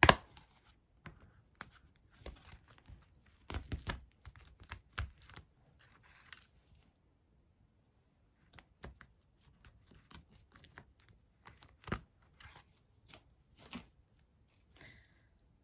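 Handling of craft supplies on a tabletop: scattered clicks and knocks of a clear plastic stamp case being set down and opened, with short stretches of plastic and paper rustling, the sharpest click right at the start.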